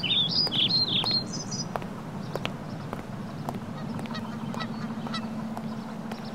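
Small songbirds chirping in quick, high phrases that rise and fall for about the first second and a half, over a steady low hum. Scattered sharp clicks follow.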